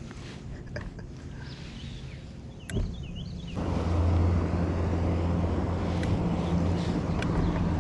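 Boat motor running with a steady low hum, which steps up sharply and gets much louder about three and a half seconds in. A knock and a few short high chirps come just before it.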